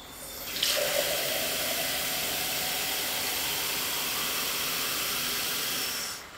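Kitchen mixer tap turned on full, water running steadily into a drinking glass with a hiss, then shut off sharply about six seconds in.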